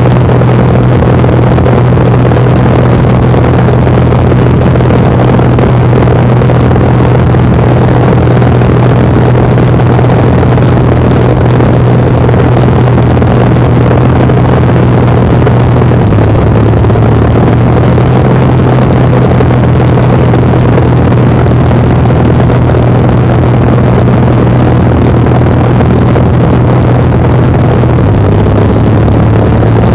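Piston engine of an L-19 Bird Dog tow plane, a six-cylinder air-cooled Continental, running steadily at high power, heard from inside the cabin. The drone comes from climbing out with a glider on tow, and it dips slightly in pitch about halfway through and again near the end.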